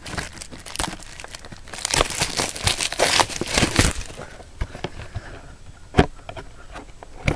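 Plastic wrapping on a trading-card box being torn open and crinkled: dense crackling for about four seconds, then a few scattered clicks and one sharper click about six seconds in.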